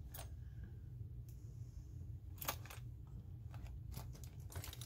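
Rummaging through small makeup containers: a few sharp clicks and light knocks as they touch each other, with a cluster near the end, over a steady low hum.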